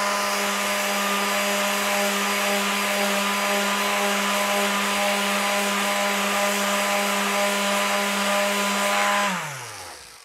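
Worx WX822 electric detail sander with its brush motor running at a steady speed while sanding wood, fitted with the beaver-tail detail attachment and a fine 240-grit finishing pad. It is switched off about nine seconds in, and its pitch falls as it winds down.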